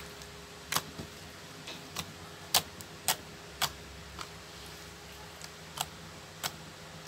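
Yellow tofu-texture slime being pressed and stretched by hand, giving sharp clicks and pops at irregular intervals, about nine in all, as small air bubbles in it are squeezed.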